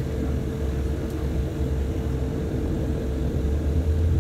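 Embraer EMB 120 Brasília's Pratt & Whitney PW118 turboprop engines running at low power during the ground roll after landing, heard from inside the cabin: a steady low drone with a steady hum over it, the low end swelling slightly near the end.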